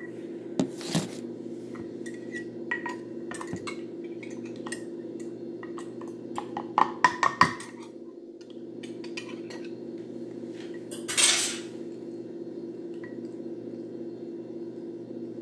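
Scattered clinks and knocks of a whisk and utensils against a glass mixing bowl and dishes, with a louder cluster about seven seconds in, over a steady low hum. A short rush of noise comes about eleven seconds in.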